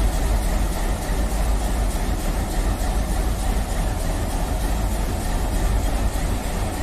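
Steady low rumble and drone of a locomotive running, with no distinct beats or changes in pitch.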